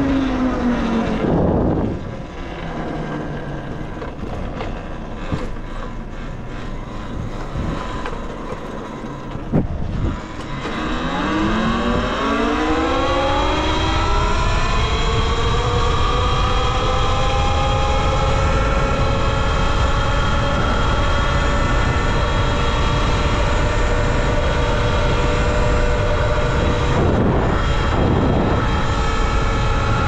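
Talaria Sting R electric dirt bike's motor and chain drive whining under a steady low rush of wind. The pitch falls as the bike slows in the first two seconds. About ten seconds in, it climbs as the bike accelerates, then levels off into a steady high whine at top speed.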